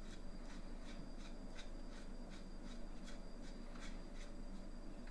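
Thread protector being screwed by hand onto a pistol's threaded barrel: faint metal ticks and rubbing at about three a second.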